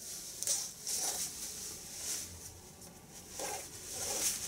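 Rustling and scratching of a very dense polyester Komine JK-017 motorcycle jacket as its back pocket is unfastened by hand, in several short hissy bursts.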